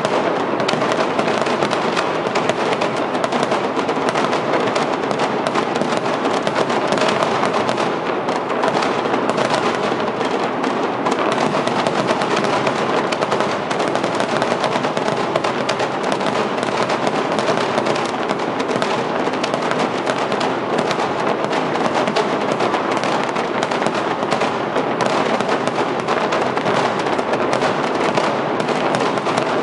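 A dense, unbroken fireworks barrage: many bangs and crackles running together into one continuous crackling din.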